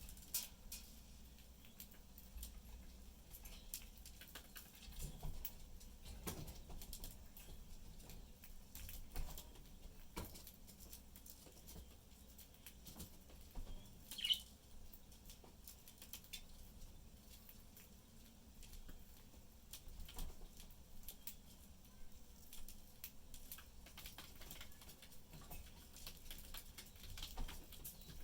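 Budgerigars eating: scattered faint clicks and taps throughout, with one short high chirp about halfway through.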